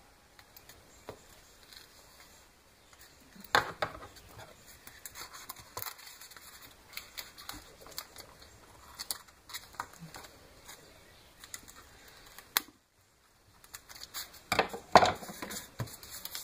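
Packing tape being handled and cut with scissors: scattered snips, crinkles and light taps, with louder bursts about three and a half seconds in and again near the end. The sound drops out completely for under a second at about thirteen seconds.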